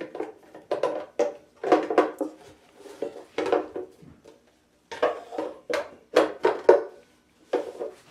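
Parts of a Halloween animatronic being handled and fitted together during assembly: a string of sharp knocks and clacks in irregular clusters, with a short pause about halfway through.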